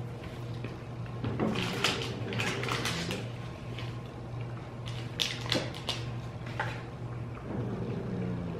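Small clicks and rustles of people eating a chocolate bar and handling its wrapper, in two short clusters, over a steady low hum.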